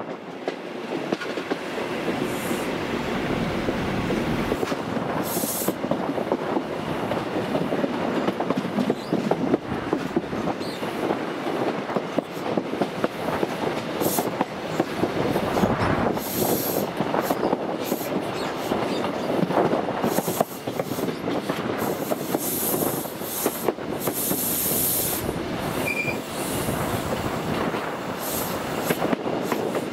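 HST (InterCity 125) passenger train running on the rails: a steady rumble of wheels on track with many short clicks, and brief high squeals now and then in the second half.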